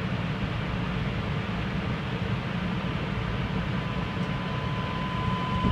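Kanazawa Seaside Line rubber-tyred automated guideway train running along its guideway, heard from inside the car: a steady rumble and hiss of running noise. A faint, high, steady whine comes in about halfway through and grows stronger near the end.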